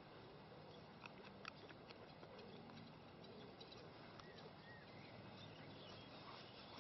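Near silence: faint outdoor background hiss with a few soft clicks, and a faint short bird chirp about four seconds in.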